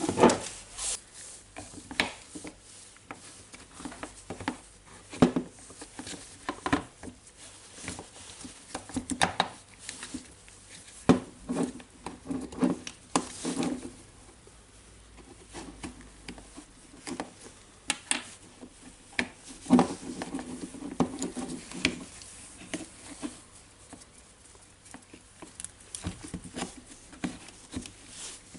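Irregular clicks, knocks and rubbing of plastic parts and wires being handled inside an opened cordless drill housing as the brushless motor controller assembly is taken out and fitted.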